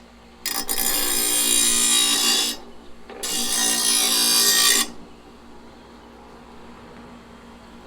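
Harbor Freight bench grinder running with a steady hum while a metal blade is pressed to the grinding wheel twice, about two seconds each time, making a loud grinding noise with a short break between the passes.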